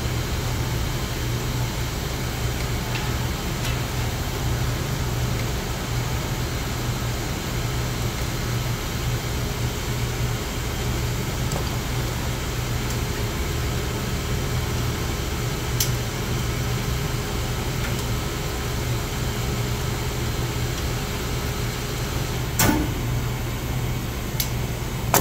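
Steady low machinery hum from equipment running in a steam boiler room, with a few sharp clicks, the loudest near the end.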